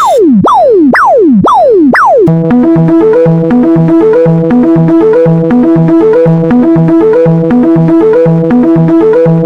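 Four quick falling-pitch glide sound effects, about two a second, then from about two seconds in a synthesizer keyboard tune with a steady repeating beat.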